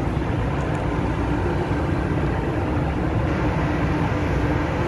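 Steady machine drone with a low rumble and a constant hum, running evenly without change.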